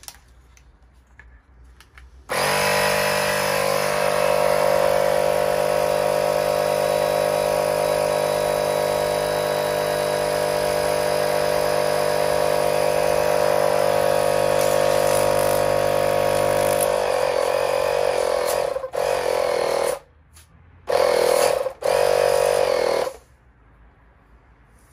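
Small electric air compressor running steadily under load as it pressurises an oil pressure switch to test whether the switch opens. Near the end it stops and starts in a few short bursts, then falls quiet.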